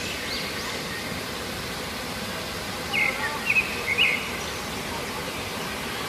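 Outdoor background noise with birds calling: a few faint chirps early on, then a quick run of about four short, sharp calls about three seconds in.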